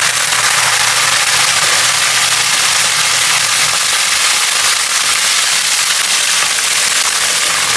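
Chicken pieces deep-frying in hot oil in a wok: a steady, loud sizzle with crackling.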